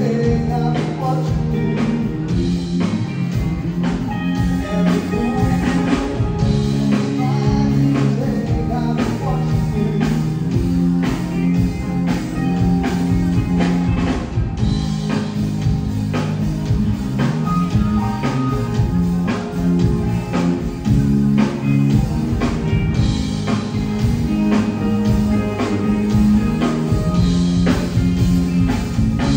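Live band playing a song: a singer over drum kit, guitars and keyboard, with a steady drum beat.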